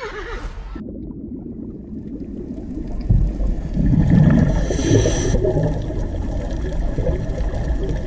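The tail of a pony's whinny fading out within the first second, then the rumble and gurgle of water recorded underwater, which gets louder about three seconds in.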